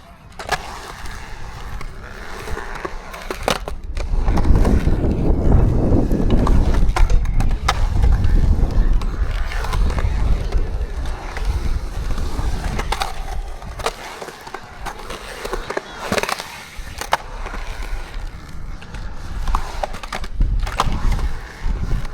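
Skateboard rolling and carving through a concrete skatepark bowl: a steady wheel rumble that swells loudest in the middle, broken by sharp clacks of the board and trucks striking the concrete and its edges.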